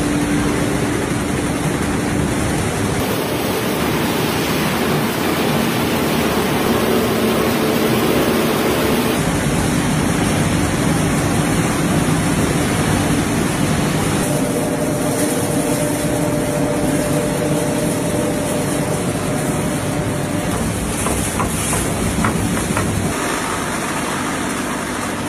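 Matchstick-splint machinery running in a factory: a loud, steady mechanical noise with a low hum as wooden splints are tumbled and fed through drums and chutes. The noise changes in character several times, with a few light clicks near the end.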